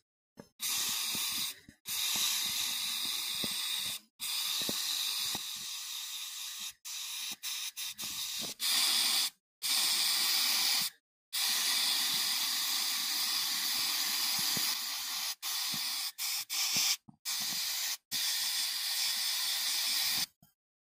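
Compressed-air paint spray gun hissing as it sprays paint, in long bursts broken by a dozen or so short pauses as the trigger is released and pulled again.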